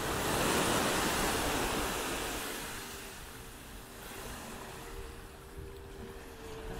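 Sea surf washing up on a sandy beach: the rush of a breaking wave swells in the first second or two, then draws back and quietens.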